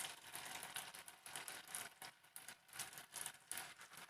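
Hot oil deep-frying battered elephant foot yam strips: a steady sizzle with irregular crackles.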